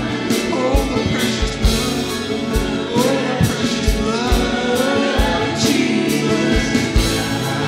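Live worship band playing gospel-style worship music: several voices singing together in harmony over acoustic guitar and drums, with a steady kick-drum beat about twice a second.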